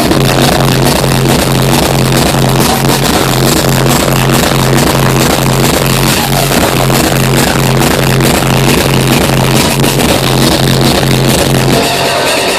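Loud hardstyle dance music with a heavy kick drum pounding at a steady fast tempo, about two beats a second; the kick drops out briefly near the end.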